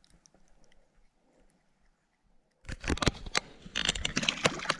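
Faint at first, then from about two and a half seconds in, sudden irregular splashing and sloshing of shallow water as a hand lowers a freshly caught cutthroat trout into it for release.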